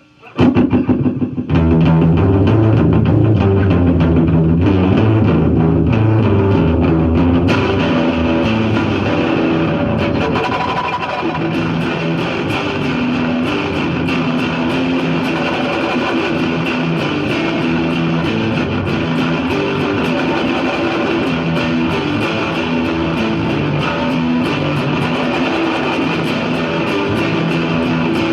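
Electric guitar played through heavy fuzz and a long delay, improvised riffing in which fast picked notes repeat and build up into a dense wash. It starts about half a second in, after a brief lull.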